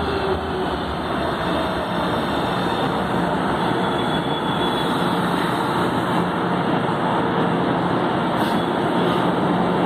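São Paulo Metro Line 3 train running into the station platform and slowing to a stop: steady rumble of wheels and motors, with a faint high whine briefly midway.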